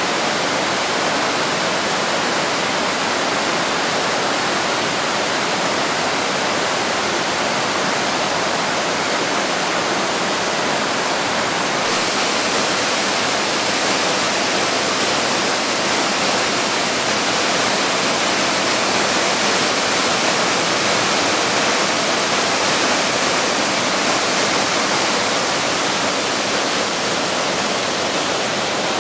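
Tiered rainforest waterfall and the rapids below it, water rushing steadily over rock ledges and stones.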